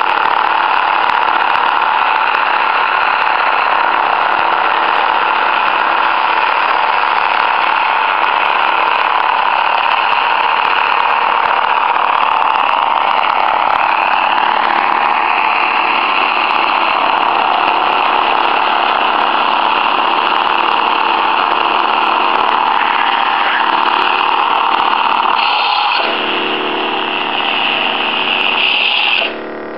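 Several lightsaber sound boards humming at once, a steady layered electronic hum. Near the end the hum thins out in two steps and drops sharply just before the end as the sabers are switched off.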